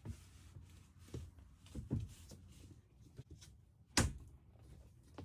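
A few scattered knocks and thumps, handling noise in a small room, the loudest a sharp knock about four seconds in.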